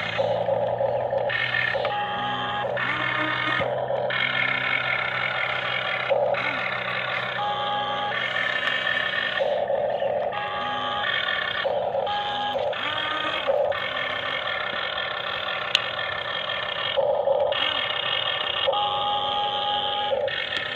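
Electronic beeping tones in changing, repeating patterns, each lasting about half a second to a second with short gaps, over a steady low hum.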